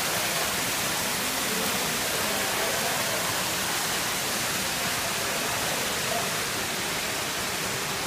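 Decorative rock waterfall splashing steadily: a constant rush of water falling over the rocks.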